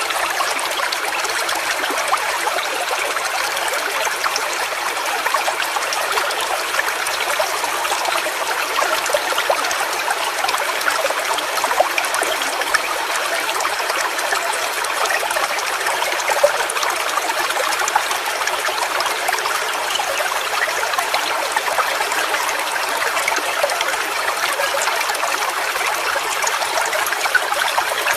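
A small stream running over rocks, a steady trickling and splashing of water full of small droplet splashes, with no deep rumble.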